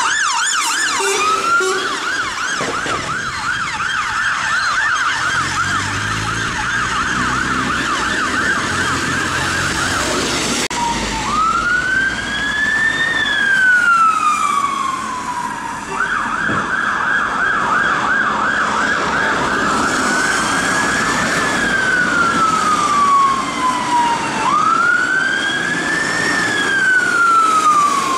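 Emergency vehicle sirens going past: a fire engine's siren on a fast yelp, with its diesel engine heard under it as it passes. Then a police car's and a water rescue van's sirens alternate between slow rising-and-falling wails and a fast yelp.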